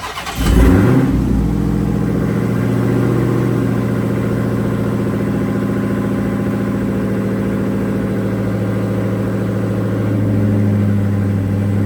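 A car engine starts about half a second in, flares briefly, then settles into a steady idle.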